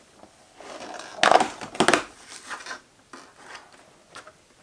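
Cardboard advent-calendar door being pushed in and torn open along its perforation: a crunching tear a second or so in, loudest near two seconds, then lighter rustles and clicks as the compartment is handled.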